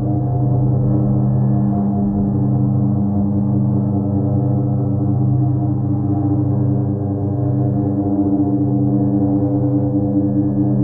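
Modular synthesizer drone, built from a TipTop Audio Z3000mk2 oscillator, Make Noise Wogglebug and Maths, and a Doepfer 188-1 bucket-brigade delay: a dense stack of held low tones that slowly wavers and swells, with nothing bright on top.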